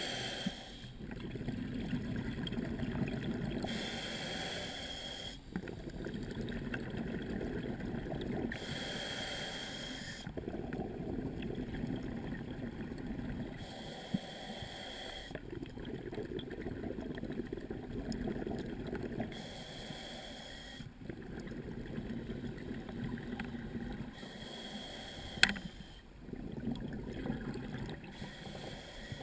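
Scuba diver breathing through a regulator: a short hissing inhale with a faint whistle, then a longer stretch of bubbling exhaust, repeating about every five seconds. One sharp click near the end.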